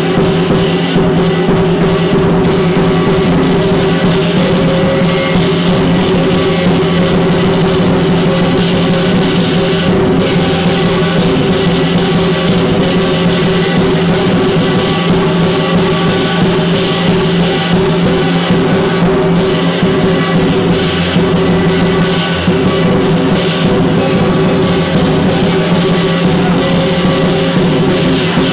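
Chinese lion dance percussion: a big drum, clashing cymbals and a gong played loudly and without pause in a fast, dense beat.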